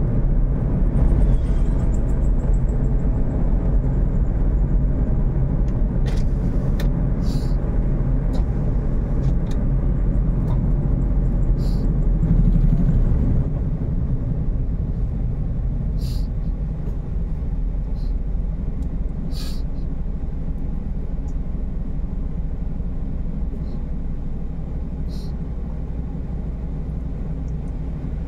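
A car's engine and tyres give a steady low rumble while driving. The rumble eases about halfway through as the car slows behind traffic and comes to a stop. A few short, sharp clicks are scattered through it.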